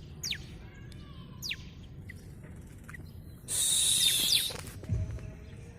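Small caged songbirds calling: short, high, quickly falling chirps, with a louder, hissy burst of about a second just past the middle.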